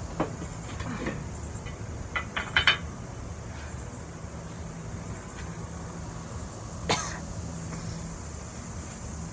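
Steady low room hum with a few light clicks and knocks: a quick cluster about two and a half seconds in, and one sharper click near seven seconds.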